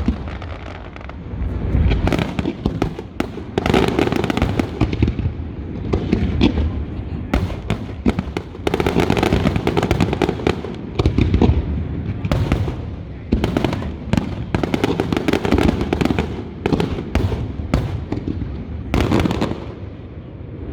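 Fireworks display: a dense run of booms and sharp crackling bangs, coming in clusters that swell and ease with a low rumble in between.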